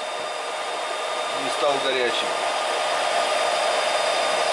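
Brushless e-bike rear hub motor (V2 3000) spinning an unloaded wheel on a test stand at speed, run from an 84 V battery pack: a steady electric whine of several fixed tones over a rushing hum.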